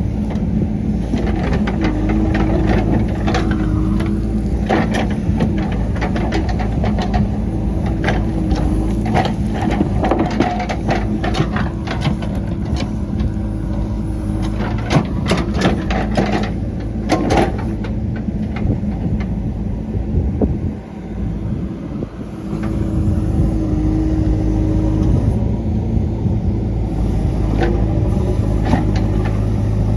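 JCB 3DX backhoe loader's diesel engine running steadily under work. Many sharp clanks and knocks sound over it through the first half or so, and the sound dips briefly about two-thirds of the way through.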